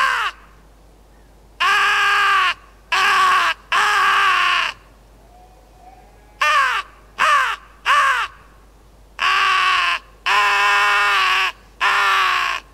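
Nordik crow call, a mouth-blown call with a free-floating double-ended reed, sounding three series of three harsh, raspy caws that fall in pitch: the first and last series drawn out, the middle one short and quick. It is blown as an alarm call, imitating a carrion or hooded crow that has spotted a fox or bird of prey.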